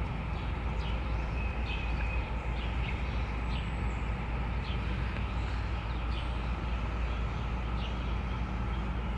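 Outdoor ambience: a steady low rumble with short, scattered bird chirps over it.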